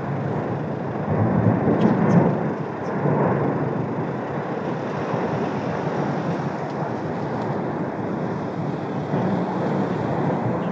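The continuous noise of the erupting Cumbre Vieja volcano: a steady, deep rumble that grows louder for a couple of seconds about a second in, then settles back to an even level.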